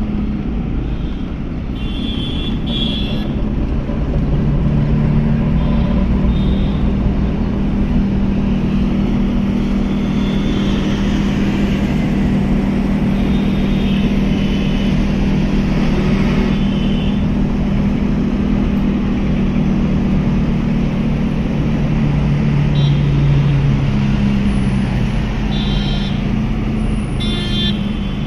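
Car engine running and road noise heard from inside a moving taxi, the engine's pitch slowly rising and falling with speed. Several short horn toots from the surrounding traffic cut in, around two seconds in, in the middle and near the end.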